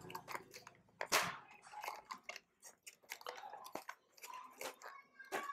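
Clear plastic packaging crackling and clicking as hands handle and pry at it to get the earphones out, in a quick irregular string of sharp crinkles.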